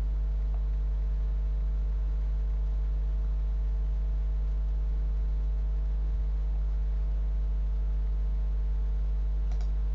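Steady electrical mains hum, a low buzz at about 50 Hz with its overtones, and nothing else of note.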